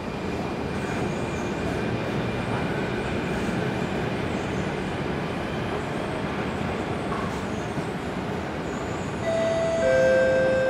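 Alstom Metropolis C830 metro train rumbling steadily as it pulls away into the tunnel, muffled behind closed platform screen doors. Near the end a two-note falling chime sounds, high then low.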